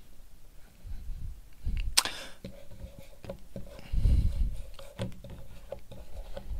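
Chalk writing on a blackboard: a run of short taps and scrapes as the chalk forms letters. There is a sharp click about two seconds in and a dull thump about four seconds in.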